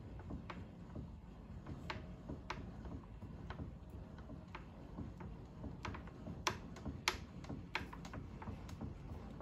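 Benchtop milling machine's table being cranked slowly by hand: irregular light clicks and ticks from the handwheel and leadscrew, with a few sharper clicks past the middle, over a low steady hum.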